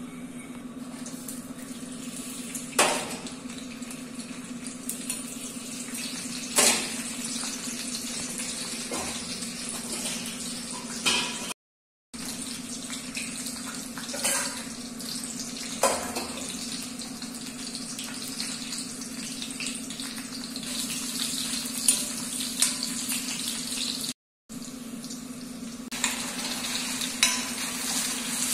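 Oil sizzling steadily in an iron kadai as nuts fry, with a sharp click of a metal ladle against the pan every few seconds and a steady low hum underneath.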